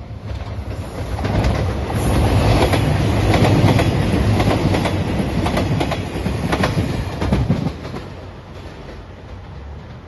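JR Shikoku 2700-series diesel limited express train passing close at speed: it grows loud about a second in, its wheels clacking over the rail joints through the loudest part, then drops away sharply near the end as the last car goes by.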